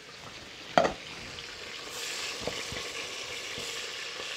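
Pork breakfast sausage frying in a pan, sizzling steadily and picking up about two seconds in, as it is stirred with a utensil. A short sharp knock comes about a second in, with a few light taps later.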